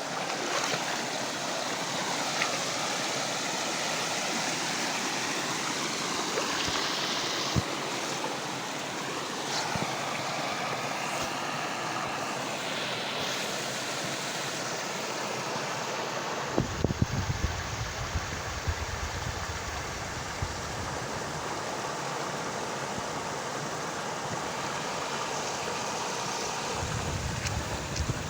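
Flowing water, a steady rushing sound. About halfway through it shifts to a deeper, rumbling rush with a few brief louder thumps.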